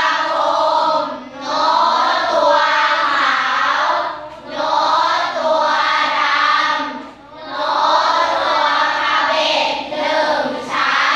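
A class of schoolchildren chanting in unison, in phrases of about three seconds with short breaks between them.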